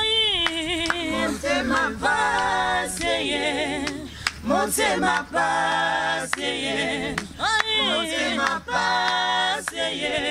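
Small mixed group of men's and women's voices singing a gospel song a cappella in harmony, holding long notes with vibrato and short breaks between phrases.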